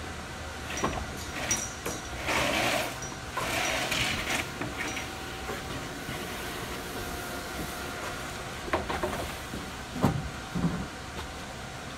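Large gypsum drywall sheets being handled and slid against a stacked pile: scraping rushes a couple of seconds in, scattered knocks, and a few thumps near the end, over a steady faint hum.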